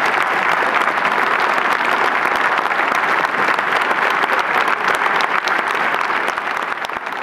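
Audience applauding, a dense, steady clapping for the cast's curtain call.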